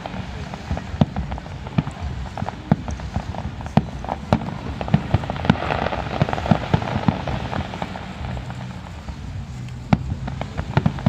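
Fireworks going off, with many irregular bangs and crackles in quick succession.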